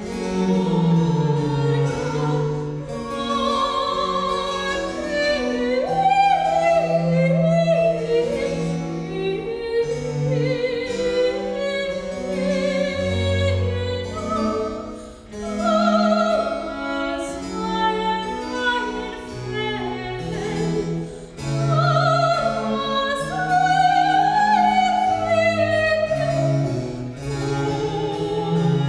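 Soprano singing a Baroque Italian cantata with vibrato, accompanied by harpsichord and baroque cello playing the bass line.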